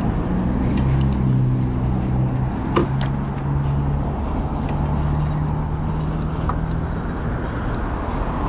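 Street traffic with a motor vehicle's engine running close by: a steady low hum that shifts pitch a few times, with a sharp click about three seconds in.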